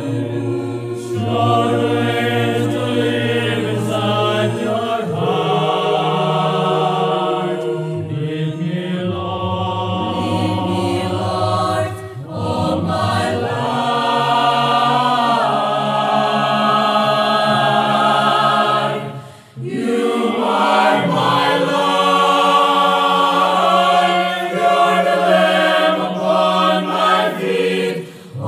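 Mixed choir of sopranos, altos, tenors and basses singing an English worship song in four-part harmony, with short breaks between phrases about twelve seconds in, near twenty seconds and at the end.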